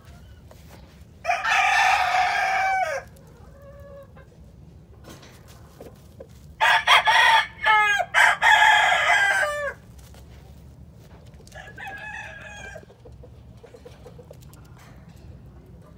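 Gamefowl roosters crowing: one crow about a second in, a longer, louder stretch of crowing near the middle, and a fainter crow a few seconds later.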